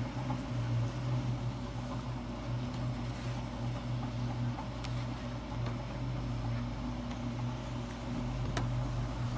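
Steady low mechanical hum of a running motor, with a couple of faint clicks, one about halfway through and one near the end.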